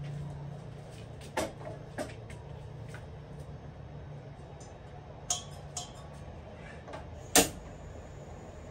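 Light knocks and clatter of an aluminium pot and the gas cylinder valve at a two-burner gas stove, then one sharp, loud click as the burner is lit near the end.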